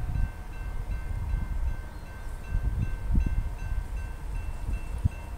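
Railroad grade-crossing warning bell ringing in an even, repeating rhythm, the sign that a train is approaching the crossing. Wind gusts rumble on the microphone underneath.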